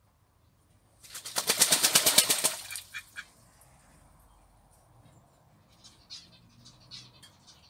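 Miniature Silver Appleyard duck bathing in a shallow tub: a burst of rapid wing-beating and splashing in the water lasting about a second and a half, then a few light splashes and drips as it settles and preens.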